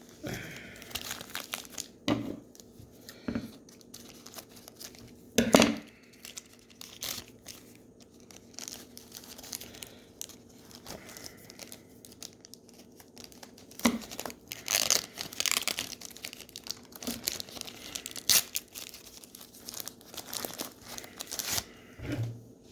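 Trading-card pack wrappers being torn open and crinkled, in irregular rustling and crackling bursts, with the sharpest tear about five seconds in.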